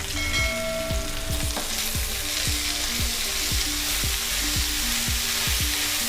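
Chopped Sesbania grandiflora (agathi) flowers sizzling steadily in hot oil in a frying pan, just after being added to the fried onions and spices.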